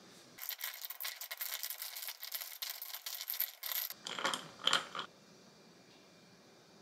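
An iced, foam-topped drink in a glass mug fizzing and crackling for about three and a half seconds as a dense stream of tiny pops. Then come a few light knocks of the glass and a ceramic plate against the stone countertop.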